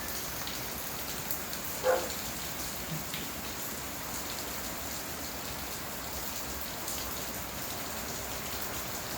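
Steady rain falling, with scattered drops ticking. There is one brief, sharper sound about two seconds in.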